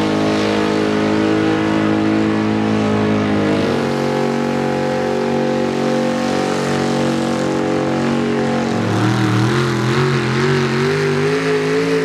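Square-body pickup truck engines at full throttle under heavy load, pulling a weight-transfer sled. The engine note holds steady, steps lower about four seconds in and again near nine seconds, then wavers up and down near the end.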